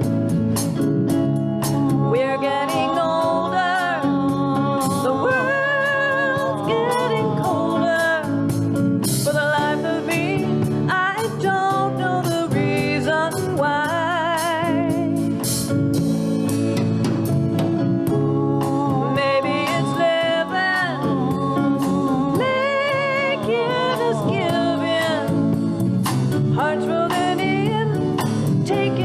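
Small live band playing a mid-tempo song: drum kit with cymbal strokes, bass and acoustic guitars, and a lead melody line with vibrato over them.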